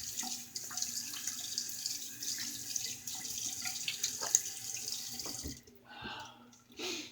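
Bathroom sink tap running, cut off about five and a half seconds in, followed by two brief sounds.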